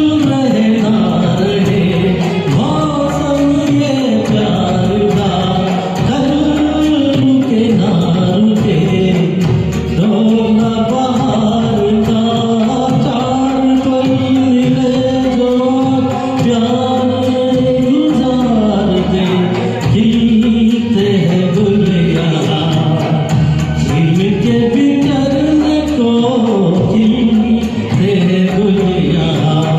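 A man sings a slow Hindi film song over a karaoke backing track, holding long, gliding notes.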